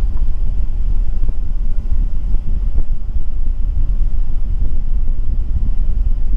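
Truck engine idling, heard from inside the cab as a steady low rumble.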